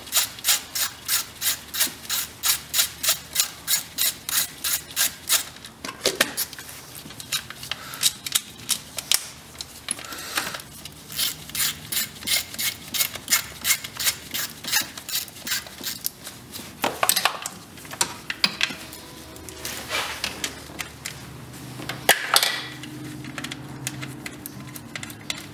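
Ratchet wrench on a long extension clicking steadily, about three clicks a second, as it runs in the distributor cap screws. The clicking comes in two long runs with a pause and a few separate knocks between them.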